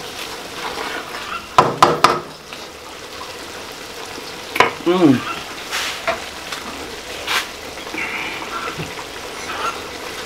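Collard greens sizzling in a large aluminium pot while a wooden spoon stirs them, with a few sharp knocks of the spoon against the pot about two seconds in and single ones later.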